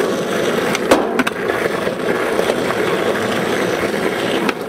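Skateboard wheels rolling steadily over rough asphalt, with a couple of sharp clicks about a second in and another near the end.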